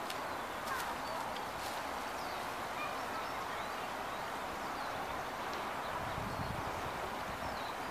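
Outdoor background hiss with faint, scattered chirps of small birds, and a brief low rumble a little before the end.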